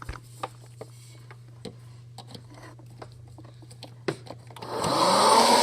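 Faint clicks and a steady low hum, then a click about four seconds in as a popcorn-making appliance is switched on: its fan motor spins up with a rising whine and settles into a steady, loud whir.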